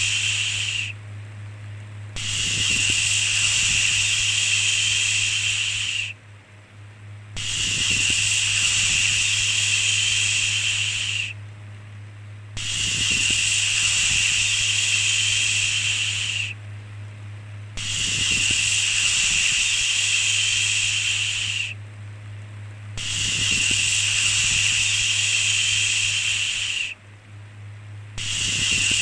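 A long 'shhh' shushing sound repeated over and over, each shush lasting about four seconds and followed by a pause of about a second. A steady low hum runs underneath.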